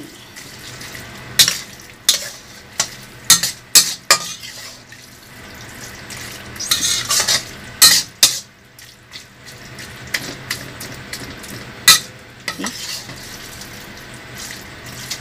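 Spatula scraping and knocking irregularly against a stainless steel pan as creamy carbonara pasta is tossed, with light sizzling from the sauce. The sharpest clanks come about eight and twelve seconds in.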